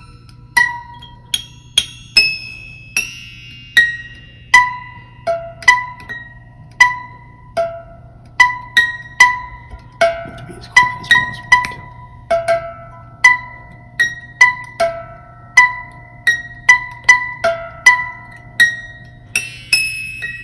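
Music: a slow melody of single plucked, bell-like notes, each struck sharply and ringing away, about one to two notes a second over a faint low hum.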